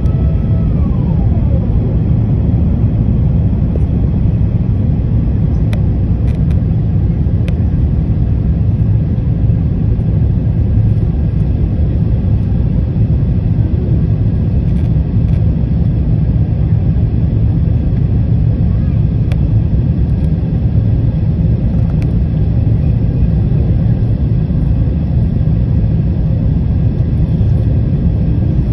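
Airliner cabin noise during the climb after takeoff: the jet engines and rushing air give a steady, loud, deep rumble, with a tone gliding down about a second in.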